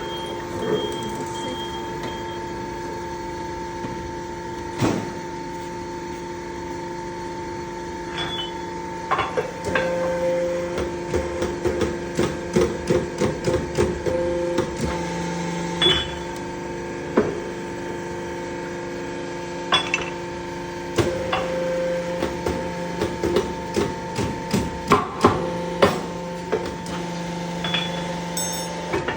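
Steady machine hum with a few fixed tones, overlaid by runs of sharp metal knocks and clinks as construction-machine track chain links are worked on.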